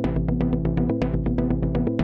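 Electronic intro music: a fast, steady beat of about eight hits a second over sustained bass notes that change about once a second.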